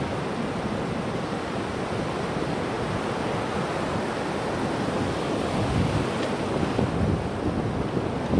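Ocean surf washing in over the shallows, a steady noise of breaking waves, with wind buffeting the microphone.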